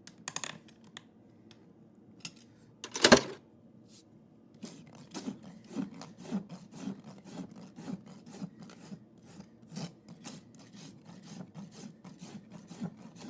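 Farrier's rasp filing a horse's hoof to smooth the clinched nail ends, in rhythmic strokes about two a second from about five seconds in. About three seconds in there is a single sharp knock.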